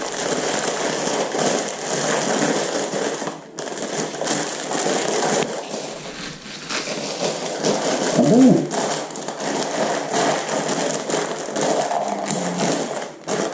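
Packaging rustling and crinkling as the contents of a metal detector box are unwrapped and handled, a continuous noisy rustle with short pauses.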